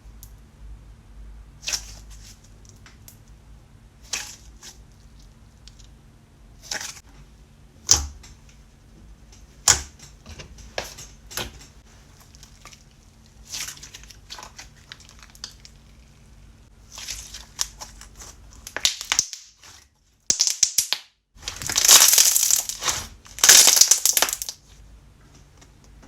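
Slime being played with by hand: scattered short, sharp crackles and clicks every second or two, then two longer, louder crackling squeezes near the end.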